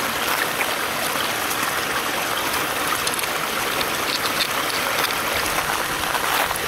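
Steady rushing of water flowing at a beaver dam.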